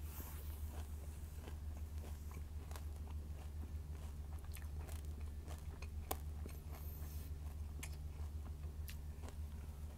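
A person chewing a mouthful of Vector cereal, a continual run of small crisp crunches with a sharper one about six seconds in, over a steady low hum.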